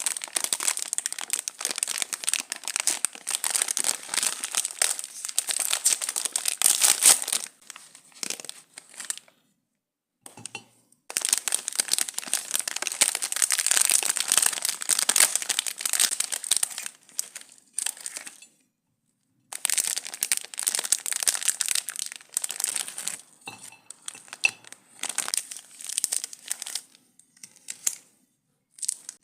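Chocolate wrappers crinkling and tearing as they are handled and unwrapped close up, in long dense stretches broken twice by brief silences.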